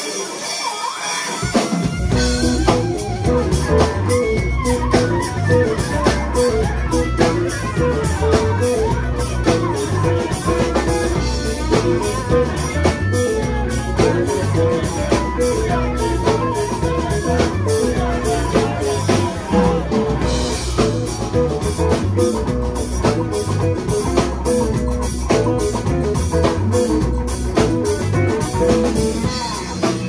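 Live band playing: a deep, repeating bass guitar line and drum kit with electric guitar over the top. The bass comes in about two seconds in.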